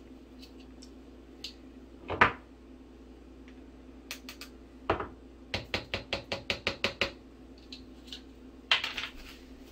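Light clinks and knocks of a spoon against jars and a plastic blender cup as a teaspoon of minced garlic is measured in. There is a single sharper knock about two seconds in and another about five seconds in, then a quick run of about a dozen light taps, all over a steady low hum.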